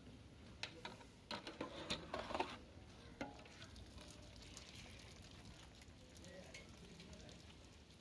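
A metal utensil scraping and clinking in a cooking pot, a quick run of strokes in the first three seconds, then a faint steady hiss.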